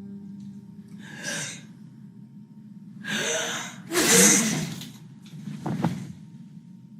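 A woman's gasping in-breaths as she works up to a sneeze. There are short gasps about one and three seconds in, the loudest and breathiest burst about four seconds in, and a shorter, sharper one near six seconds.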